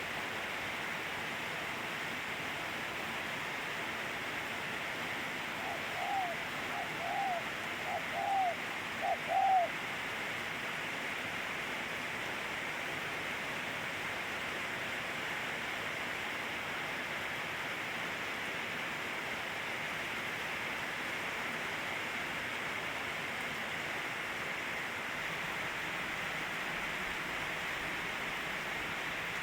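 Steady rain falling. A bird gives four short calls between about six and ten seconds in.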